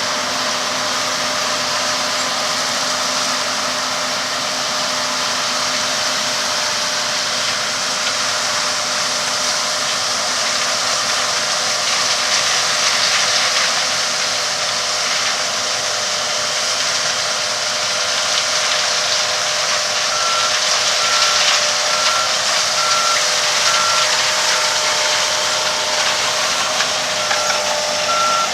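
Heavy harvest machinery engine running steadily with a loud even hiss. From about two-thirds of the way in, a vehicle's reversing beeper sounds a high beep about once a second.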